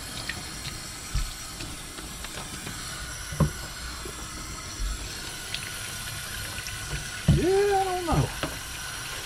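Kitchen faucet running steadily into a stainless steel sink over a dog being bathed, with a few soft knocks. About seven seconds in comes a short voice-like sound that rises and then falls.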